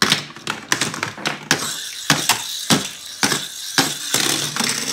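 Crazy 8 Crashers toy cars pushed by hand and knocked against the plastic Smash & Crash Derby track and a wooden tabletop: a quick, irregular run of sharp clacks and knocks.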